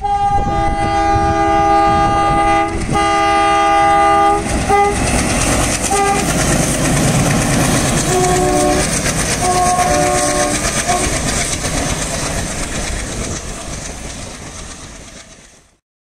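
Indian Railways diesel locomotive sounding its multi-tone horn in two long blasts and a couple of short toots, then its wheels clattering over the rail joints as it passes. Two more horn blasts come at a lower pitch, and the sound fades out near the end.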